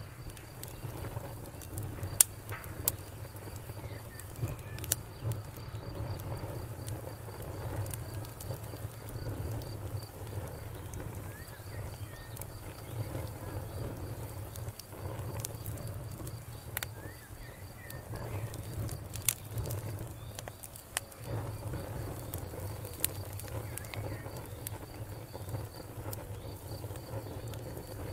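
Wood campfire crackling, with scattered sharp pops over a steady low rumble. A faint, high, pulsing insect trill, like a cricket's, runs steadily behind it.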